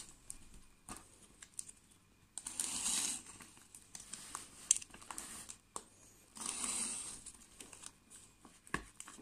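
Plastic film and packing tape on a cardboard parcel crinkling and tearing as they are cut open with a box cutter, in two bursts of about a second each a few seconds apart, with scattered clicks between.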